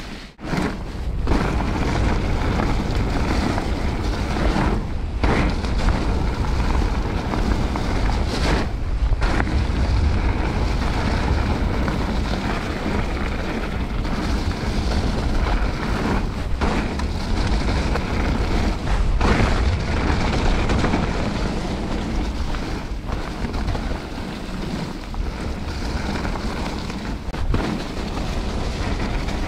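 Wind buffeting the camera microphone over the rumble and rattle of a mountain bike's tyres rolling fast over a leaf-covered dirt trail, dropping away briefly a few times.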